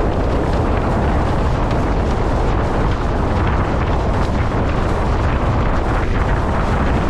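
Strong wind buffeting the microphone, a steady loud low rumble, mixed with the hiss and splash of water rushing past a windsurf board sailing fast over choppy water.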